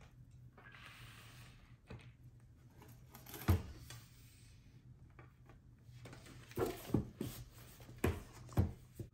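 Things being handled on a tabletop: soft rustling at first, then a string of sharp knocks and taps, the loudest about three and a half seconds in and a cluster of them near the end.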